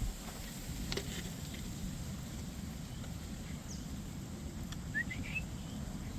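Steady low wind rumble with a few faint ticks, and a single short rising bird chirp about five seconds in.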